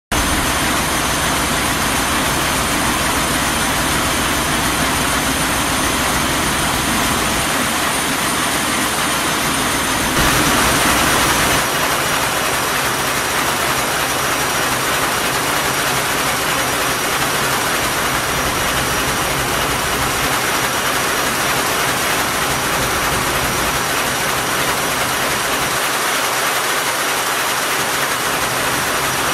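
The MS Lofoten's original 1964 main diesel engine running, heard up close with its open rocker-arm valve gear working: a loud, steady mechanical din that swells slightly for a moment about ten seconds in.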